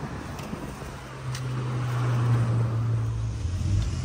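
Street traffic: a car's engine hum rises about a second in and holds, over the general noise of the road.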